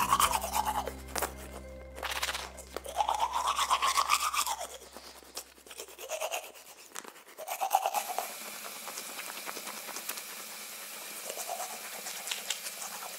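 Toothbrush brushing teeth, a scratchy scrubbing sound, over light background music.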